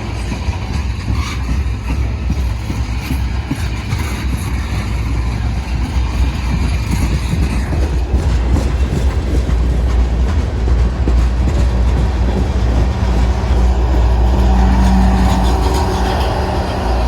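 BNSF manifest freight train rolling by on the rails, a steady low rumble that grows gradually louder.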